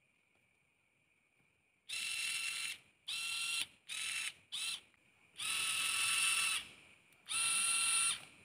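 Homemade electric screwdriver, a small DC motor driving the plastic reduction gearbox taken from a 28BYJ-48 stepper motor, switched on in six short runs with no bit fitted, each run a steady gear whine. The runs begin about two seconds in, the last two being the longest.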